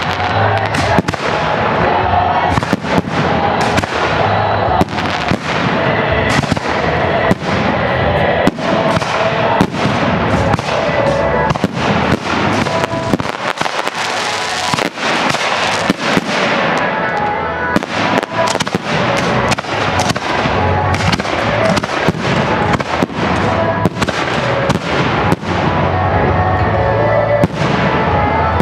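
Fireworks display: aerial shells bursting overhead in a dense barrage, several bangs a second over a continuous rush of noise.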